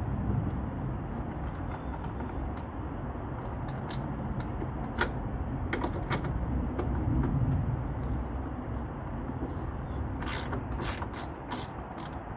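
Ratchet wrench clicking as a 10 mm bolt is turned out, in scattered strokes with a quicker run of clicks near the end. A low rumble runs underneath and peaks about midway.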